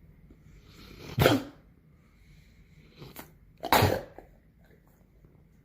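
A dog sneezing twice, about two and a half seconds apart, with a smaller puff of breath just before the second sneeze.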